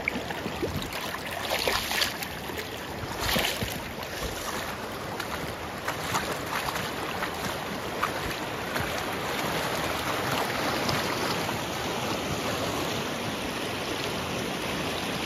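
Shallow river riffle: fast water rushing over rocks in a steady wash, with a few louder splashes in the first few seconds.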